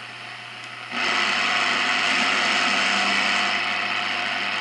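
Shortwave radio receiver tuned near 20 MHz, its speaker giving steady static with faint buzzing tones in it. About a second in the noise jumps abruptly much louder as the antenna feed is switched between the 9:1 balun and unun. The louder setting is picking up more interference, which the owner finds strangely worse on the balanced feed here.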